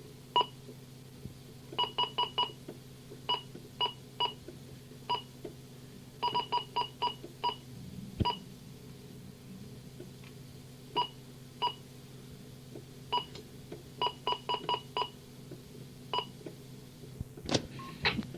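Short, identical telephone keypad beeps in irregular clusters, a few dozen in all, as someone presses keys on a phone, heard over a scanning radio with a steady low hum beneath. A sharper click and crackle comes near the end.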